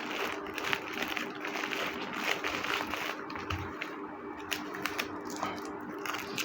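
Packing materials handled by hand, crinkling and rustling with small clicks and taps, over a steady low hum.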